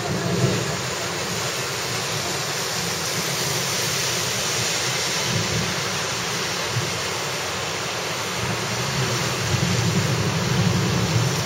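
Heavy rain falling steadily in a constant hiss, with gusty wind buffeting the microphone in an uneven low rumble that swells and fades.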